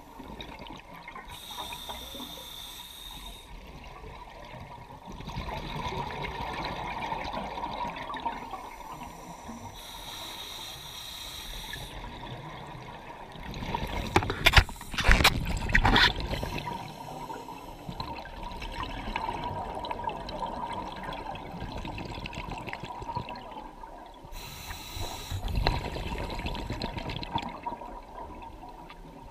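Scuba diver breathing underwater through a regulator: a short hissing inhale from the demand valve, then a longer rush of exhaled bubbles, about three breaths in all. A cluster of loud knocks and clatters comes around the middle.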